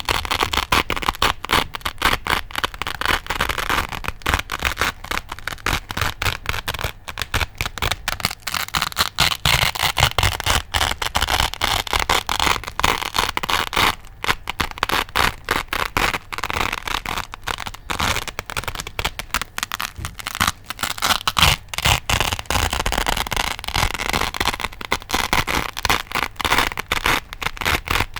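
Velcro hook-and-loop fastener being ripped apart over and over, a crispy, crunchy crackling tear that goes on almost without a break.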